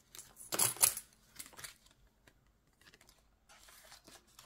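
Euro coins clinking as they are handled and dropped together. A loud cluster of clicks comes about half a second in, with a few lighter clicks just after and faint rustling near the end.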